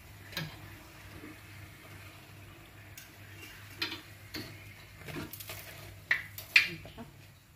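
Metal kitchen utensils clinking: a fork and a wire mesh skimmer tapping against the wok as a fried fritter is lifted out of the oil. A scattering of short light clicks, busier and louder toward the end, over a faint steady low hum.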